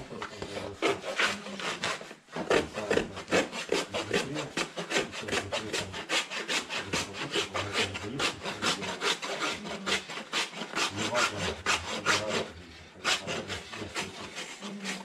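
Farrier's hoof rasp filing a freshly shod horse's hoof: quick, even rasping strokes, about three a second, with a brief pause near the end.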